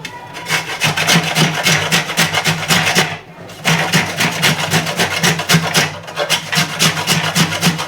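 Dried coconut being grated by hand on a grater: quick rasping strokes, several a second, with a short pause about three seconds in.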